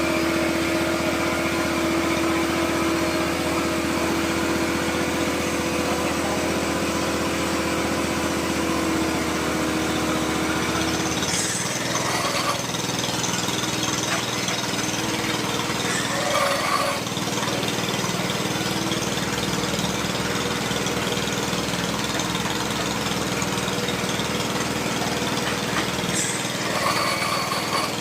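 Small engine of a water-well drilling machine running steadily. Its tone shifts about a third of the way in, and there are a few short knocks, about 12, 17 and 27 seconds in.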